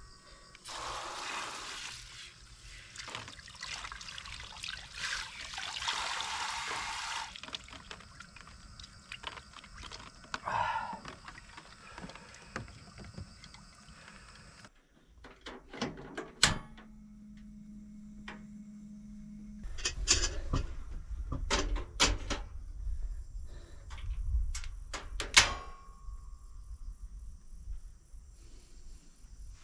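Water splashing and pouring as a person washes in the water, in several short stretches, with scattered knocks and clatter.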